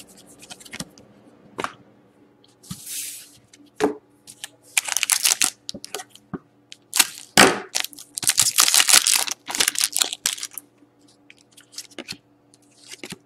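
Foil wrapper of an Upper Deck Artifacts hockey card pack being crinkled and torn open, in several bursts of tearing, with the cards clicking and sliding as they are handled.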